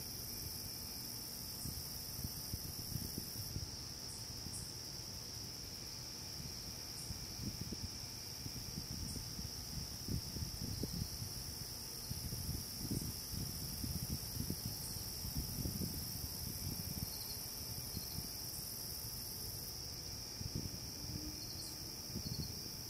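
Steady, continuous high-pitched trilling of a night insect chorus, crickets. Irregular low rumbles come and go under it, strongest in the middle.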